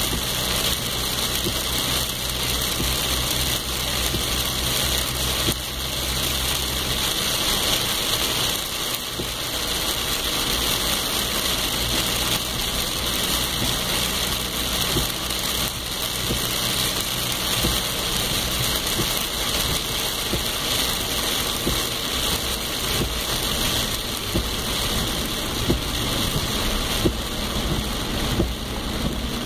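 Steady rain falling, a dense even hiss, with a low steady hum underneath that drops out about seven seconds in and returns for a while in the middle. A few sharper taps stand out near the end.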